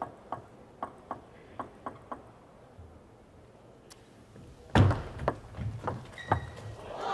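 Table tennis ball clicking: a few light bounces in the first two seconds as the server gets ready, then a pause. Near the end comes a heavy thump as the serve goes in, followed by a quick run of sharp ball hits and table bounces, about three to four a second, in a fast rally.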